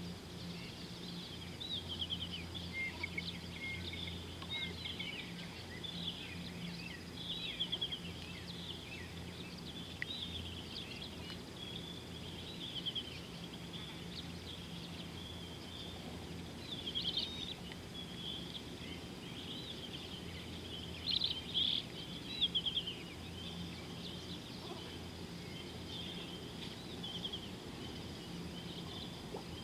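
Wild birds chirping and calling in a busy chorus of short, high, quick notes, with louder bursts of calls about two-thirds of the way through. A steady low hum runs underneath.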